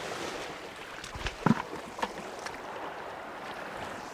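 Sea water washing among shoreline rocks, with a few sharp knocks, the loudest about a second and a half in.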